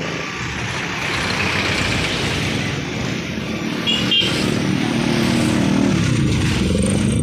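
Street traffic noise with motorcycle engines running, one engine growing louder past the halfway mark as a motorcycle approaches and goes by, then easing off near the end. A brief high double chirp sounds about four seconds in.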